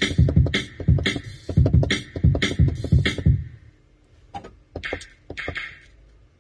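Drum beat finger-played on a pad controller: deep kicks and sharp snare and hi-hat hits in a quick, even pattern that breaks off about three and a half seconds in, followed by a few scattered single hits.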